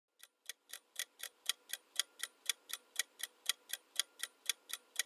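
Clock-ticking sound effect of a quiz countdown timer: sharp ticks about four a second, alternating louder and softer like a tick-tock, faint at first and growing over the first second or so.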